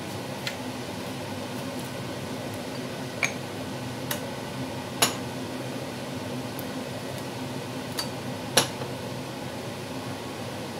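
A handful of short, sharp clinks and knocks of glassware and kitchenware being handled, the loudest about five seconds in and again a little after eight seconds, over a steady low hum.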